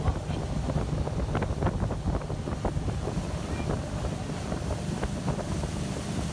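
Wind buffeting the microphone aboard a motorboat under way, a steady low rumble with the boat's running and water noise beneath it.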